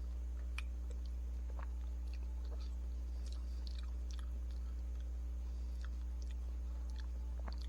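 Faint chewing of a hard-frozen ice cream bar with a crumb coating, heard as scattered soft clicks and crunches, over a steady low electrical hum.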